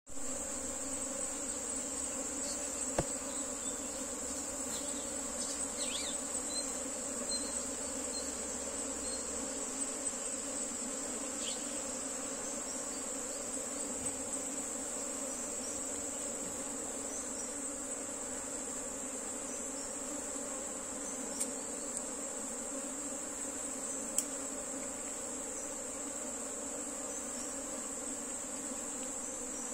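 A colony of honey bees humming steadily over an opened box hive, with a constant high-pitched insect whine behind the hum and a few faint clicks.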